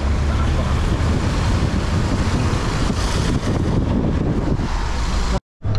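Wind buffeting the microphone over a steady low rumble from a moving vehicle. The sound cuts out abruptly for a moment near the end.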